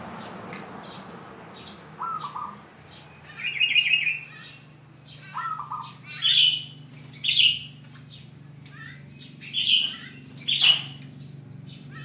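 Caged zebra dove (perkutut) cooing in short phrases of quick staccato notes, with louder, higher bird calls in between, about once or twice every second or two.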